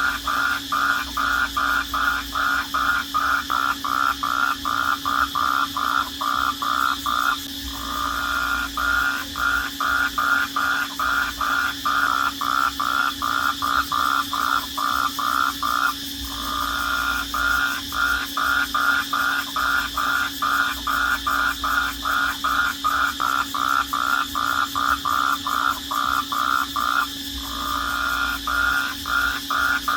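Crickets chirping in a steady, rhythmic night chorus, about three chirps a second with a constant high trill behind, the chirping breaking off briefly three times. A steady low hum runs underneath.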